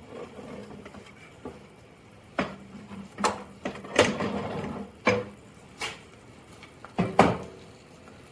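A Sherman forward-reverser transmission, a heavy cast-metal unit, being lifted out and handled, giving a series of irregular metal clunks and knocks, about seven, some with a short ring.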